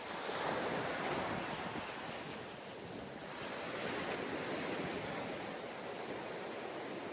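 Sea waves washing onto a sandy beach, the surf swelling twice, about three seconds apart.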